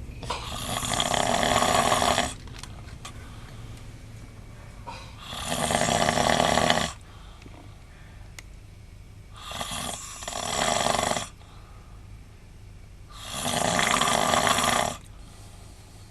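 A man snoring in his sleep: four long snores about four seconds apart, each swelling in loudness and then cutting off.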